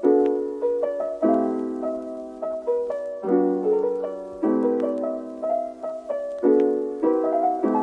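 Background music: soft piano chords struck about once every second or so, with a gentle melody on top.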